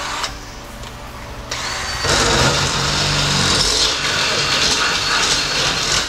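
Cordless drill boring into a hard steel seat-belt anchor bracket clamped in a bench vise. It starts about a second and a half in, runs loud and steady, and stops right at the end.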